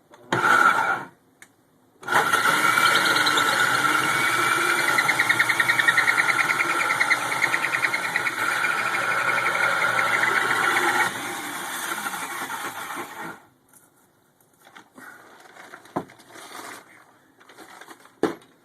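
Power drill cutting a four-inch hole through oak wood. A brief burst first, then a steady motor whine under cutting load for about eleven seconds, which drops in level near the end and stops. A few light knocks and clicks follow.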